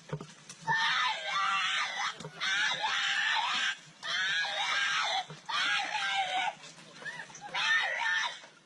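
Repeated high-pitched screaming: a string of long screams, each about a second long, with brief gaps between them.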